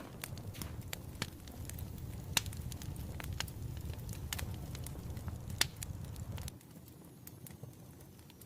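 Wood fire crackling: irregular sharp pops of burning firewood over a low steady rumble, which drops away about six and a half seconds in.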